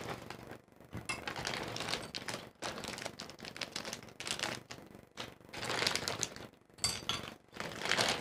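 Clear plastic packaging bags rustling and crinkling in irregular bursts as hands sort through small plastic action-camera mounts, with scattered light clicks of the parts.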